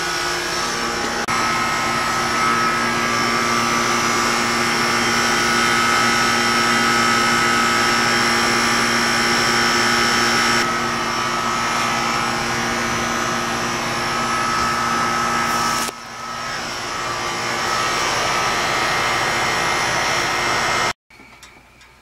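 Outdoor air-conditioning condensing unit running, its condenser fan and compressor making a steady hum with several steady tones. The sound dips briefly about two-thirds of the way through and cuts off abruptly about a second before the end.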